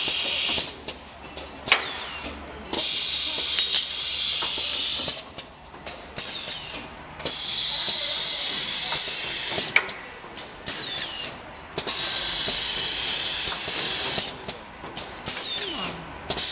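Pneumatic cup filling and sealing machine cycling. A loud hiss of compressed air, two to three seconds long, comes about every four and a half seconds. In the gaps between come sharp clicks of the mechanism and short falling squeaks.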